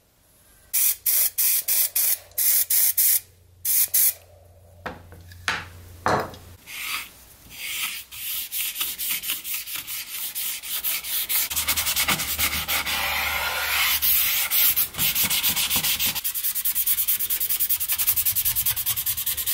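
An aerosol spray can hissing in a rapid run of short bursts. After a few seconds it gives way to a bristle brush scrubbing wood stain onto pine boards in quick, rhythmic back-and-forth strokes.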